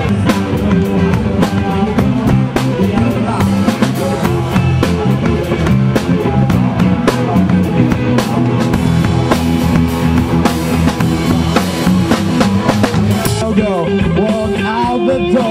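Live band playing rock/pop: drum kit keeping a steady beat under electric guitar and bass. The drums drop out near the end, leaving the guitar playing on.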